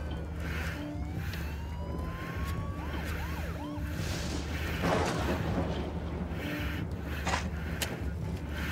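Film-trailer soundtrack: a low pulsing drone under wailing tones that glide up and down, with hissing swells and a few sharp hits in the second half.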